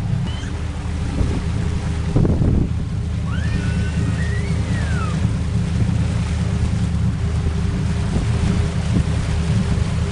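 Motorboat under way: the engine runs with a steady low hum while water rushes along the hull and wind buffets the microphone. A thump comes about two seconds in, and a short high gliding whistle-like tone about four seconds in.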